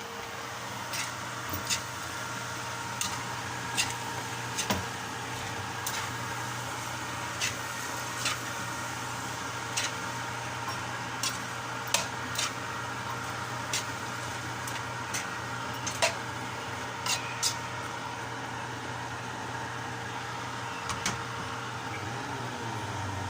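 Pinakbet cooking in a pot on the stove: short, sharp pops and ticks about once a second over a steady hum.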